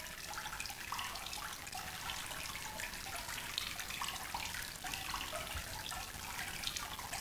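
Aquarium water trickling and bubbling: a steady light hiss with many small irregular drips and blips.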